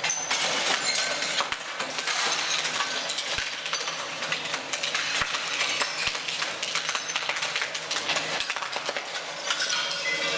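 Ceramic floor tiles cracking and breaking loose under the blade of a ROLL-STRIPPER ride-on floor stripper, with a continuous dense clatter of tile shards clinking and scraping.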